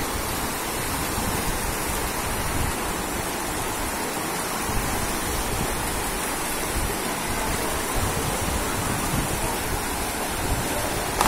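Floodwater rushing down a street in a fast, steady torrent, churning around submerged cars.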